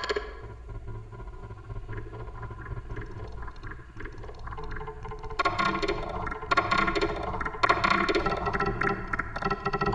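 Abstract electronic soundtrack: a low steady drone under dense, rapidly flickering textures, which thin out at the start and swell back in about halfway through.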